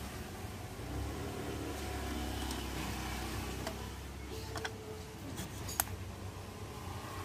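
Steady low background rumble, with a few light clicks about four to six seconds in.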